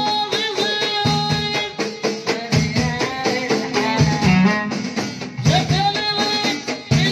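A small Moroccan folk ensemble playing: a violin melody over hand-beaten frame drums and jingling tambourines keeping a steady rhythm.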